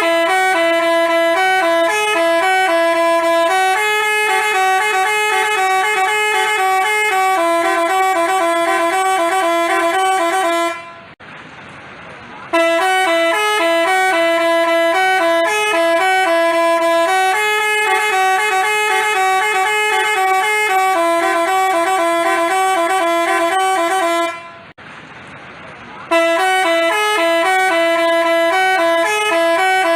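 Telolet 'basuri' bus horn playing a melody of stepping multi-tone notes. The same tune runs for about twelve seconds at a time, with a short break twice.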